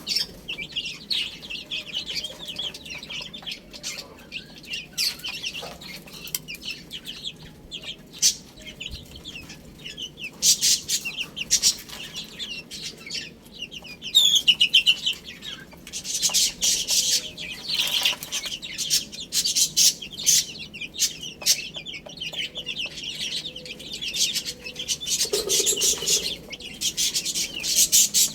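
A group of baby chicks peeping continuously in rapid, overlapping high-pitched chirps, louder in spells.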